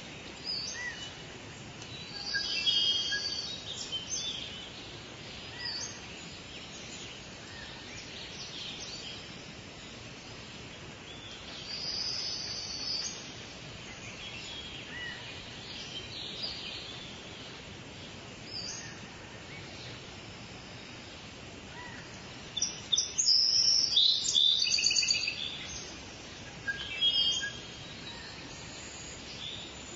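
Birds chirping in scattered short bursts over a steady hiss, with a longer, louder run of chirps about three-quarters of the way through.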